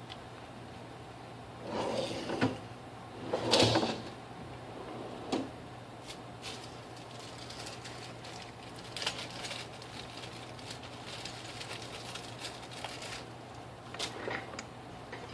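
Small clicks, knocks and scrapes of a smartphone being pried apart and handled on a work surface, with two louder bursts of scraping and knocking in the first four seconds and light clicks after that, over a faint steady hum.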